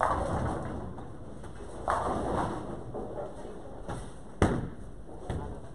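Bowling pins clattering as they are knocked down, one crash at the start and another about two seconds in, each dying away over about a second. A sharp single thud of a bowling ball comes a little past four seconds in.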